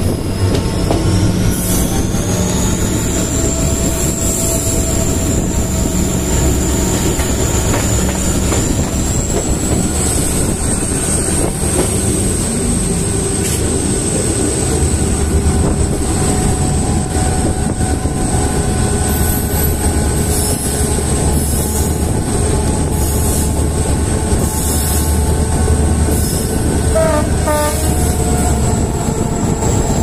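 A WDP4D diesel-electric locomotive's EMD engine humming as it hauls a passenger train at speed, heard from the coach just behind, under dense wheel-on-rail running noise. A high whine climbs in pitch a couple of seconds in and then holds steady. Short sharp ticks come through in the second half.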